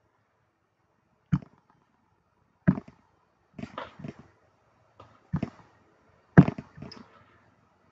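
A series of sharp, irregularly spaced clicks, some in quick pairs, from a computer mouse's buttons being clicked.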